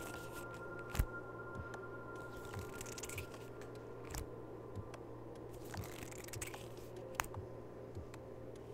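Layered ASMR soundscape: a steady ambient electronic drone with soft low pulses, overlaid with sparse sharp taps and short scratching sounds. The loudest tap comes about a second in.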